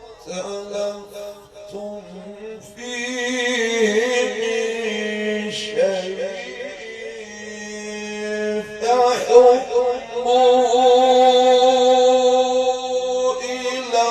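A man reciting the Quran in a melodic chant, holding long notes with wavering ornaments between them.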